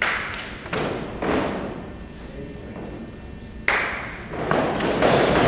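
Feet of a line of fencers stamping together on a sports-hall floor in a footwork drill: about six thuds, three in the first second and a bit and three more near the end, each echoing in the hall.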